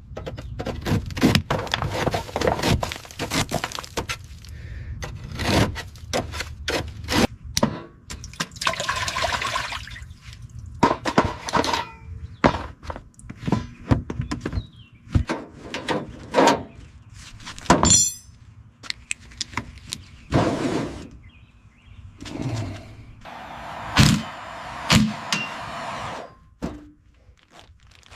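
Restoration work on a car: irregular knocks, clanks and taps of tools on metal, with a few short bursts of hissing in between.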